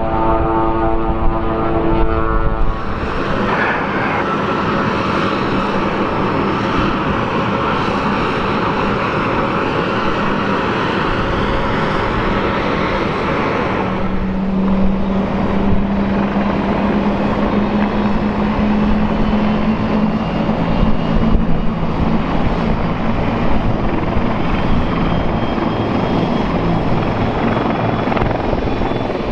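Jet airliner engines running at idle: the Boeing KC-767A's GE CF6-80C2 turbofans, a steady rushing noise with a low hum, which shifts about halfway through. A held musical chord fades out about three seconds in.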